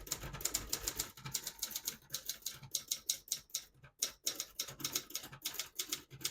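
Adler J5 manual portable typewriter being typed on: a fast, even run of key strikes, about seven a second, each a sharp clack of the typebar hitting the platen.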